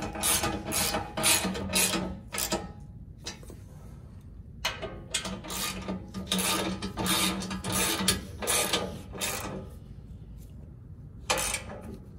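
Hand socket ratchet clicking as bolts are run into a steel skid plate, in repeated strokes about three a second: two runs separated by a pause of about two seconds, and one short stroke near the end.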